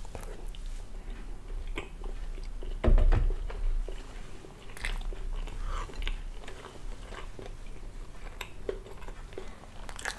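Close-miked chewing of a mouthful of soft pancake, with wet mouth sounds and a few short clicks. A dull thump about three seconds in is the loudest moment.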